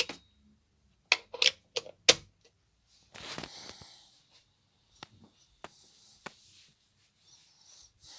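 Sharp knocks and clicks of hard plastic as Lego models are lifted off a shelf and set down: several loud ones in the first two seconds, then a brief rustle and a few lighter clicks.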